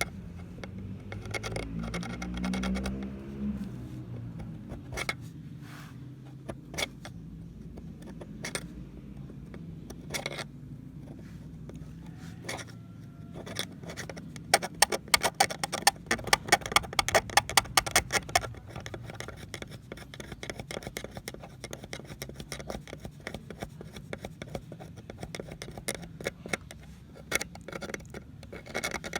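Metal scraping and clicking from hand work on an old pair of pliers during rust removal: irregular scrapes and clicks, with a fast run of loud, rapid strokes in the middle.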